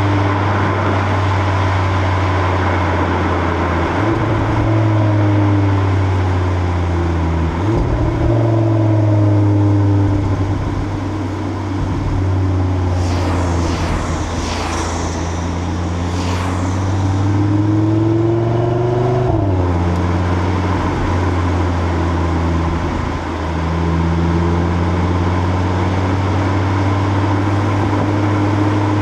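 2025 Audi RS3's turbocharged inline five-cylinder running through its stock exhaust at cruising speed, heard from the rear of the car. The engine note climbs and drops several times, with short breaks between, over steady wind and tyre noise.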